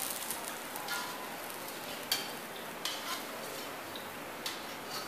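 Wooden spoon stirring pakoras into kadhi in an aluminium pot, with a few light knocks against the pot over a steady hiss.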